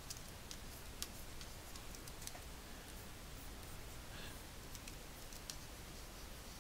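Faint, scattered clicks and light taps of a stylus working on a graphics tablet, over a steady low hum.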